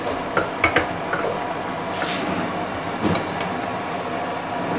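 Metal pot lid and spoon clinking and knocking against stainless steel cookware: a few sharp taps about half a second in, a brief scrape near the middle, and more taps about three seconds in, over a steady background hum.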